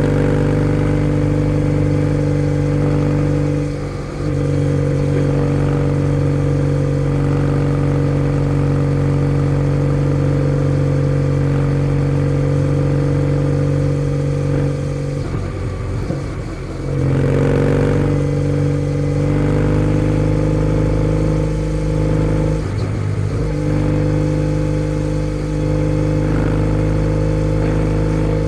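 Kawasaki W650 air-cooled parallel-twin running through a POSH W1 full exhaust while riding, holding a steady note under throttle. The note drops out briefly and changes pitch a few times, longest about halfway through, as the throttle is closed and opened again.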